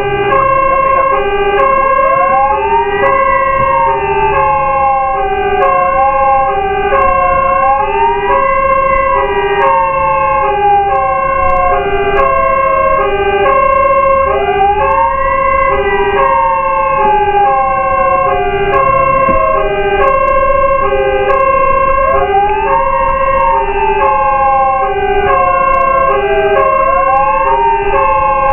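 Fire truck sirens running together: a wail that rises quickly and then falls slowly, repeating about every six to seven seconds, over a two-tone hi-lo that alternates about once a second.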